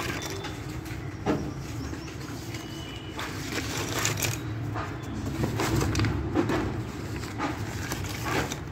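Thick slate pencils clicking and clattering against each other as a hand stirs through a loose heap of them, in irregular light knocks, over a steady low rumble.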